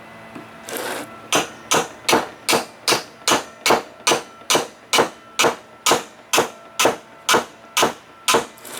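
Steady tapping on a screwdriver seated in a seized, corroded Phillips screw, about eighteen sharp metal blows at roughly two and a half a second, to shock the screw loose.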